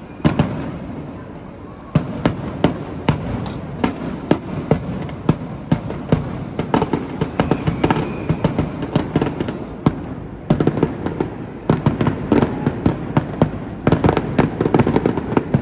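Aerial fireworks bursting in a steady display: repeated sharp bangs and crackles over a continuous rumble. The bursts come faster and thicker from about ten seconds in and again near the end.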